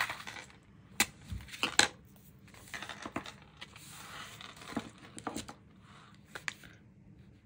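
Washi tape and paper being handled on a tabletop: scattered sharp clicks and taps, with a stretch of rustling about three seconds in, as tape is worked into a sample book.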